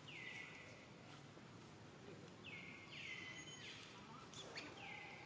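Faint outdoor background with a short high call repeated several times, each one dropping in pitch and then levelling off.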